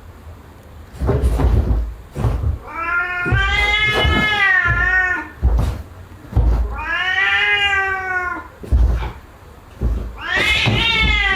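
A domestic cat yowling in three long, drawn-out calls that bend in pitch, with short knocks and thumps between them.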